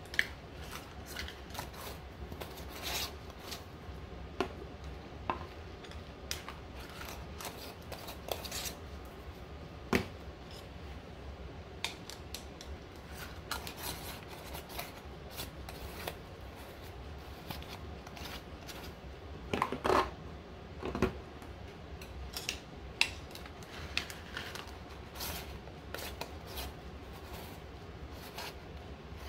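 Small round metal tins and their screw-on lids being handled and twisted shut: irregular light metallic clicks and scrapes, with a louder cluster about two-thirds of the way through.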